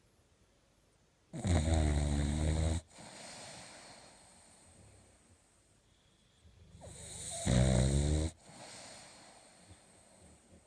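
Boxer puppy snoring while asleep: two loud, rattling snores about six seconds apart, each followed by a softer breathy sound.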